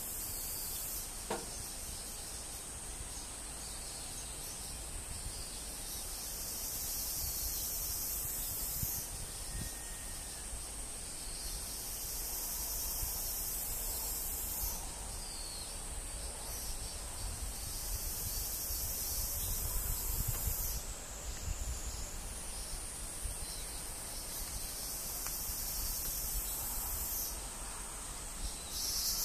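High-pitched insect chorus: a steady shrill hiss that drops out and comes back every few seconds.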